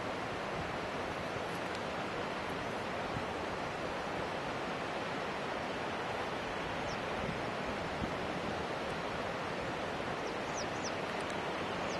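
Steady rush of a fast-flowing river current, with a few faint high chirps in the second half.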